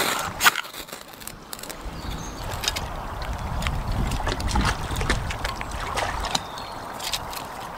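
Stream water trickling, with scattered light clicks and crunches. A low rumble comes in about two seconds in and drops away after about six seconds.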